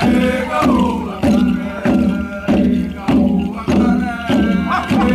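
Group chanting in unison to a steady drum beat, about one and a half beats a second, accompanying a Papua New Guinea rooster dance.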